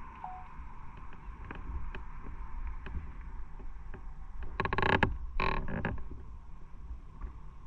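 Motorcycle riding along, with a steady low rumble from the engine and the wind. Two short, louder sounds come a little over half a second apart, about two-thirds of the way in.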